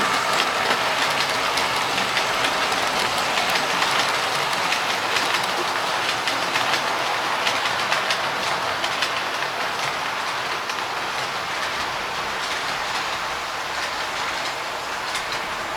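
OO-gauge model train running along the track, its wheels clicking over the rail joints with a steady rolling rush, slowly fading as it moves away.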